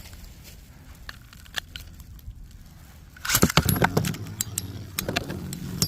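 Metal Fight Beyblade spinning tops clinking and clattering against each other and the stadium: a few faint scattered clicks, then, about three seconds in, a sudden run of loud sharp metallic clinks.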